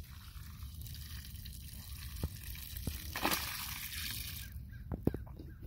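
Dirty, soapy wash water poured out of a bucket, splashing onto grass, swelling a little about three seconds in and stopping a bit later. A couple of light knocks follow near the end.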